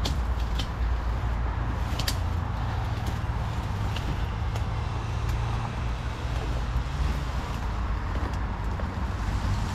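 Steady road traffic noise, with a few faint clicks.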